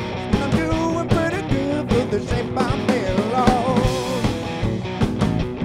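Live rock-and-roll band playing: electric guitars over a steady drum beat, with a wavering lead line bending in pitch on top through the middle.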